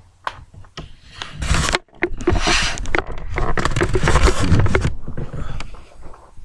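Loud rustling, scraping and knocking right against a microphone as the recording device is handled and carried, with many sharp clicks scattered through the rustle.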